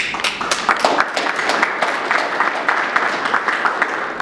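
Audience applauding, many hands clapping at once, starting abruptly.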